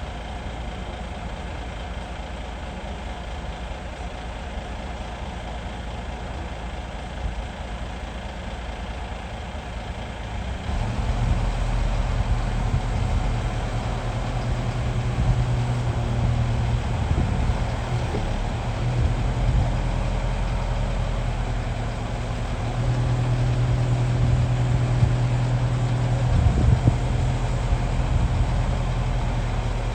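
Heavy diesel excavator engine running steadily. About a third of the way in it gets louder, with a strong low hum. It eases off briefly around two-thirds through, then comes back up.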